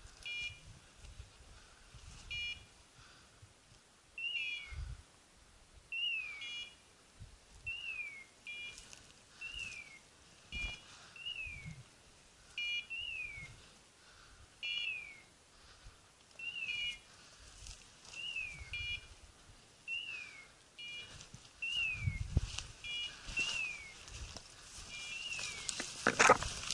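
A hunting dog's beeper collar giving its point signal: a short electronic beep and a falling chirp, the same each time, repeating about every two seconds. Footsteps thud through dry brush beneath it, with louder rustling of branches near the end.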